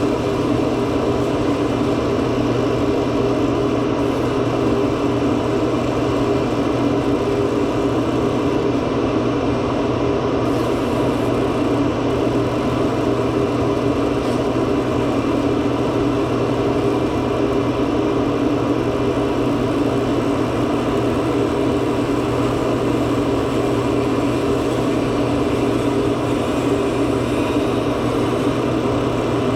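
A steady, unchanging machine hum with an even hiss over it, like a motor driving a fan.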